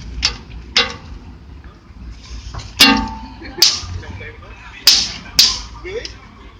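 Sharp plastic clicks and snaps, about six of them in loose pairs, some with a brief ring. They come from handling the cabin air filter and its plastic tray.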